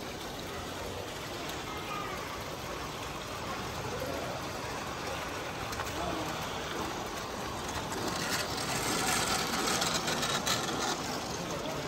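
Steady splashing and trickling of running water in a model railway's pond, with distant voices murmuring. About eight seconds in it grows louder and brighter with a light clatter as the garden-scale model train and its trucks run past close by.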